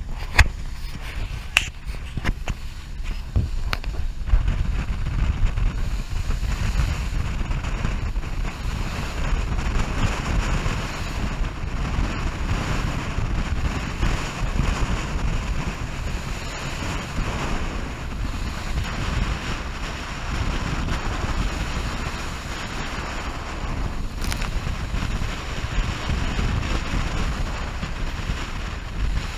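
Wind buffeting the microphone: a steady rushing noise with a deep rumble, with a few clicks in the first few seconds.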